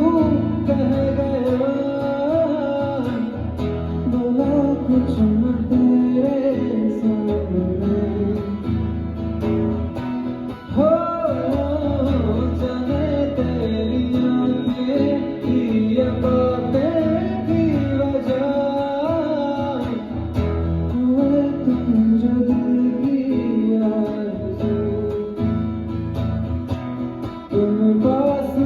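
Acoustic guitar strummed with a voice singing a melody over it, amplified through a PA system during a sound check, with a steady, repeating bass underneath.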